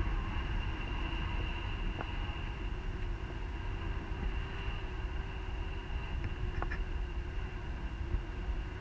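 Wind rushing over the camera microphone in flight under a tandem paraglider: a steady low rumble with a thin steady whistle over it and a couple of faint ticks.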